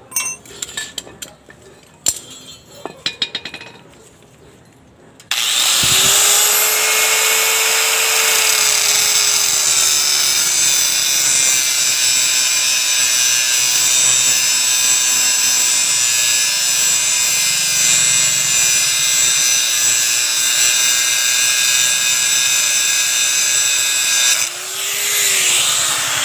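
Metal clinks and knocks as a cutting disc is fitted to an angle grinder. About five seconds in, the grinder starts suddenly and runs loud and steady, cutting metal with a harsh high hiss. Its motor pitch sags as it takes the load, and briefly rises and falls again near the end.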